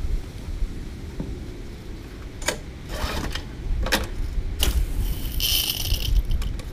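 The Briggs & Stratton engine of a Generac G23 pressure washer is pulled over with its recoil starter: four short rasping strokes about half a second to a second apart, over a low rumble. A brief hiss follows near the end.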